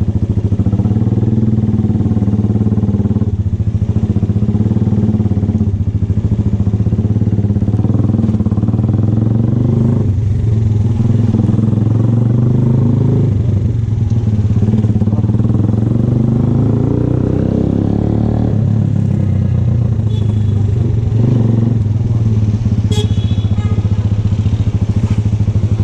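VLR200 motorcycle's engine running under way, a steady engine note that dips and shifts pitch several times as the rider works the throttle and gears.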